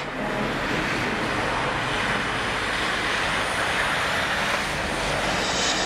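Road traffic going by: cars and an articulated lorry driving past, giving a steady rush of tyre and engine noise.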